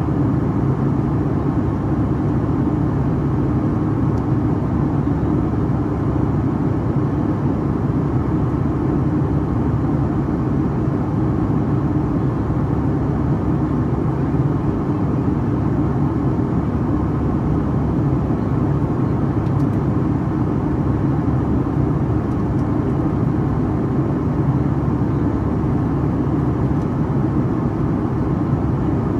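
Cabin noise of a Boeing 757-300 in climb, heard from a seat beside the wing: the steady drone of its Pratt & Whitney PW2000-series turbofan engines mixed with rushing airflow.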